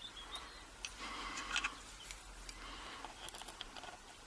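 Faint, scattered small clicks and light taps of metal padlock parts being handled as the lock is put back together.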